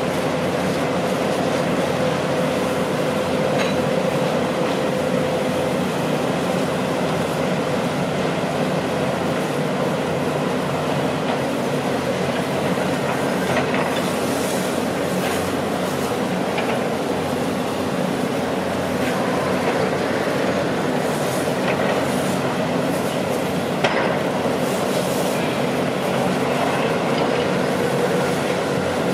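Heavy diesel construction machinery running steadily: an earth-drill rig and a hydraulic excavator digging wet spoil. There is a steady whine in the first few seconds, and a few metallic clanks, the sharpest one near the end.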